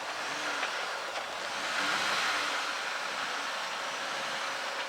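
Jeep Gladiator crawling slowly over rocks, its engine running at low revs under a steady rushing noise that swells about two seconds in.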